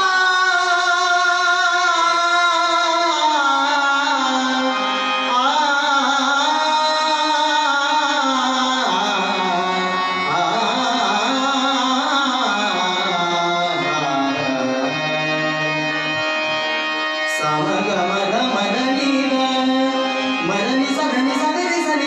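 A male voice singing a devotional bhajan in long, held and ornamented notes, with tabla accompaniment.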